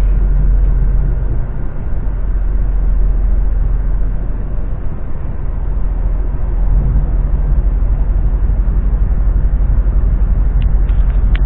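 Steady low rumble of a moving passenger train heard from inside the carriage: running noise of the wheels on the rails, with no separate events.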